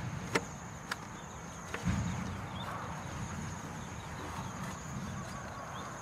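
Insects trilling in a steady, high-pitched buzz, with a few sharp clicks and some low thumps underneath.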